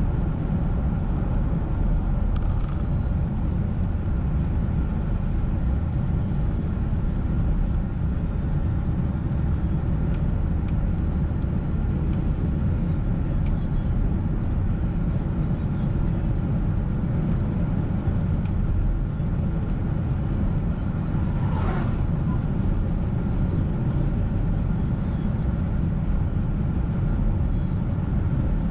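A car driving on a rain-wet road, with a steady low rumble of tyres and engine. One brief squeak comes about two-thirds of the way through.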